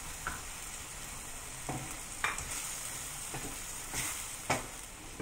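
Chicken and pineapple chunks sizzling steadily in a hot non-stick wok as they are stirred with a wooden spatula. Five sharp knocks and scrapes against the pan come in the second half, the loudest near the end.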